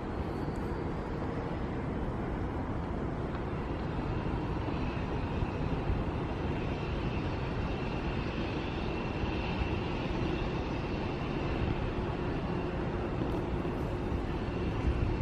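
Steady rumble and hiss of a moving Doppelmayr fixed-grip double chairlift heard from a chair riding downhill, with a faint high whine that swells midway and fades again.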